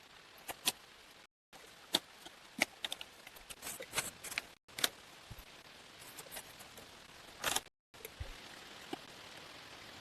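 Scattered sharp clicks and taps over a faint steady hiss, cutting out abruptly three times.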